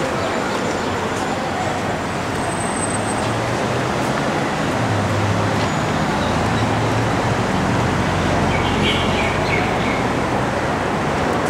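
Steady road traffic noise, with a vehicle engine's low hum swelling for a few seconds midway.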